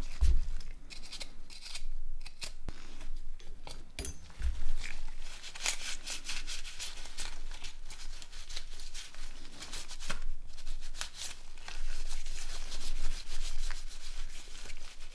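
Rubbing and scraping on a phone as it is cleaned by hand, in irregular short strokes, with a few sharp clicks and low knocks from handling it.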